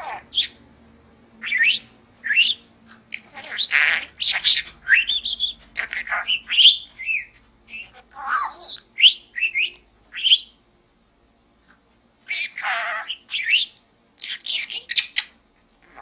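Budgerigar chattering: a quick run of short chirps, rising whistles and scratchy warbles, with a short pause about two thirds of the way through.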